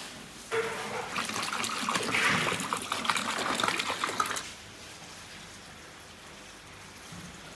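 Water gushing and splashing as a large plastic water bottle is emptied into a big metal cauldron of horse meat. About four seconds in it drops to a much quieter steady pour.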